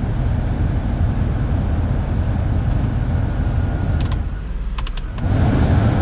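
2000 Toyota Avalon's engine idling under accessory load, heard from inside the cabin with the heater blower fan running. The loose drive belt is not yet squealing. A few clicks of the climate-control knobs come about four and five seconds in, and the engine and fan grow louder just after that.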